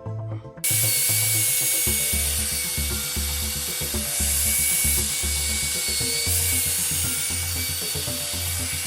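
A handheld electric power tool starts up about half a second in and runs steadily, a high whine over a hiss, with background music underneath.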